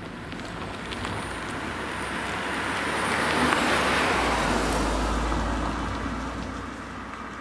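A car passing close by: engine and tyre noise builds as it approaches, peaks about halfway through, then fades as it drives away.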